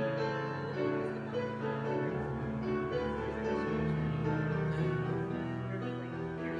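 Slow instrumental keyboard music of held chords, with a deeper bass line coming in about two seconds in.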